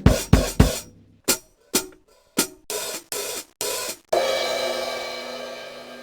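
Drum kit samples struck one after another. First come three deep drum hits in quick succession, then single sharp hits, then three short cymbal hits. About four seconds in, a cymbal crash rings out and fades for two seconds before being cut off near the end.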